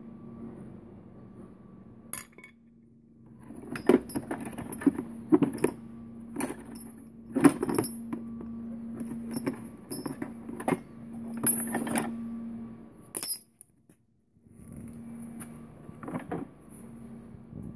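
Old rusty hand tools (files, saw blades and wooden-handled tools) clinking and clattering against each other as they are rummaged through in a plastic crate: a run of sharp metallic clinks, some louder than others, that stops about thirteen seconds in.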